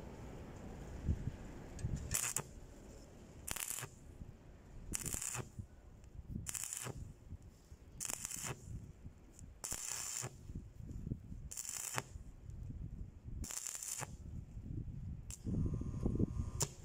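Stick (arc) welding on a forklift exhaust pipe: the electrode's arc crackles and sputters in short bursts, about one every second and a half to two seconds, as the weld is laid in stitches, with a longer run near the end.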